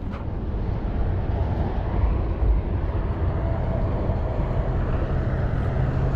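A steady low engine rumble, with a faint steady hum coming in clearer about halfway through.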